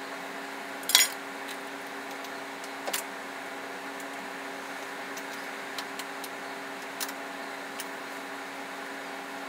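Short metal clinks and knocks of tools and parts being handled in a van's engine bay, the loudest about a second in, a double one about three seconds in and a few lighter ones later, over a steady hum.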